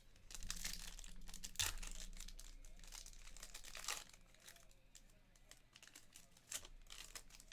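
Trading card pack wrapper crinkling as it is handled and torn open, with cards being handled. The crackling is dense for about the first four seconds, with a couple of sharper snaps, then thins to faint scattered clicks.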